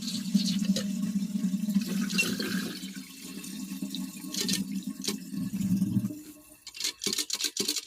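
Water running in a toilet cistern whose fill valve won't shut off. The flow dies away about six seconds in, followed by a quick series of sharp clicks and knocks.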